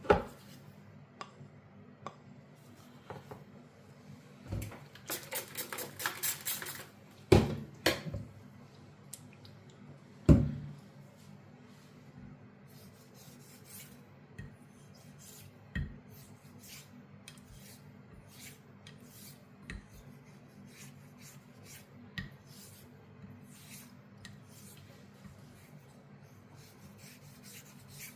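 Sheffield straight razor blade being honed: quiet rubbing strokes of steel across a hone, a quicker run of strokes a few seconds in, and a few sharp knocks, the loudest just after the start, at about seven seconds and at about ten seconds.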